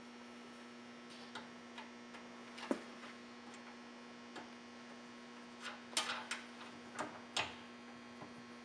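Scattered light clicks and taps of nuts and bolts being hand-tightened to fasten a component shelf bracket to a TV lift mechanism, the loudest cluster about two-thirds of the way through. A steady low hum runs underneath.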